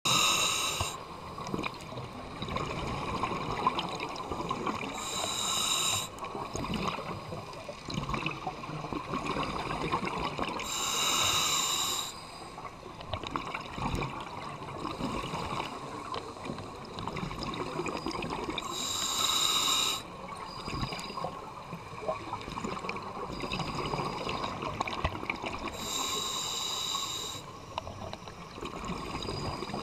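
Scuba regulator breathing heard underwater: five bubbling exhale bursts, one every six to seven seconds, each about a second long, over a steady underwater rush.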